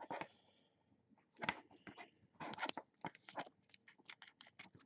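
Trading cards and pack wrappers being handled: a faint, irregular run of crinkles and clicks, busiest in the middle.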